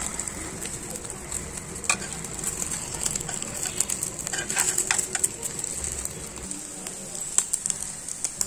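Egg omelette sizzling in hot oil in a pan while it is rolled up, with scattered clicks and scrapes of a steel spoon and spatula against the pan.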